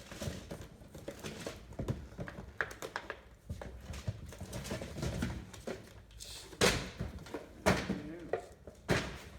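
Toy packages being handled and sorted out of a box: irregular rustling, clicks and knocks of plastic and cardboard packaging, with three louder knocks in the second half.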